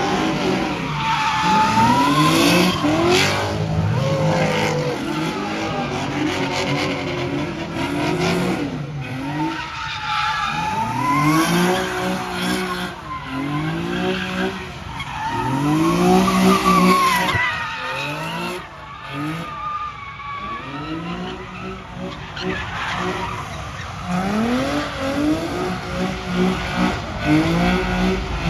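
A car spinning donuts, its engine revving up and falling back again and again about every two seconds. Its tyres screech and skid on the pavement throughout.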